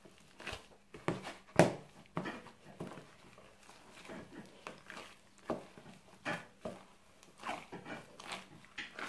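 Gloved hands kneading and squeezing raw ground pork mixed with shredded cabbage and rice in a plastic bowl: irregular wet squishes, the loudest about a second and a half in. The meat is being worked until the mixture turns sticky and binds, a stage in making cabbage naem.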